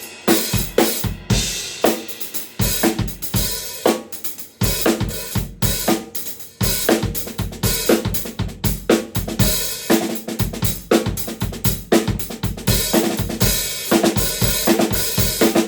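Sabian Artisan 14-inch hi-hat cymbals played in a steady drum-kit groove, with kick drum and snare hits under a continuous cymbal wash.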